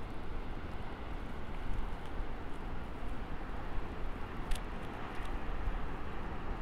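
Wind buffeting the microphone outdoors: a steady low rumble under an even hiss, with no other distinct sound.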